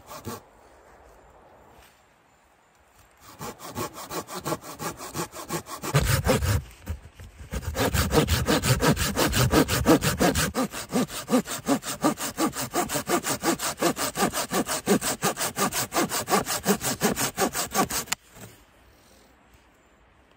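Folding hand saw with a 7-TPI carbon-steel blade sawing through a small piece of wood in quick, even back-and-forth strokes. A few strokes at the start, a short pause, then steady sawing from about three seconds in that stops a couple of seconds before the end.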